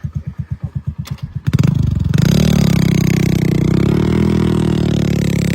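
Heavy diesel vehicle engine chugging slowly at idle, then revved hard about a second and a half in and held at high revs, the pitch wavering slightly as it works.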